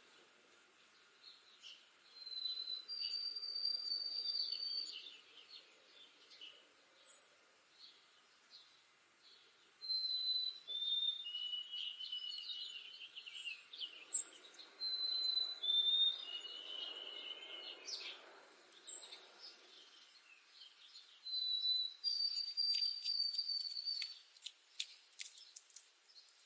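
White-throated sparrow singing its clear whistled song four times. Each song is a short opening whistle and then a long held note, either higher or dropping lower. Sharp ticks come near the end.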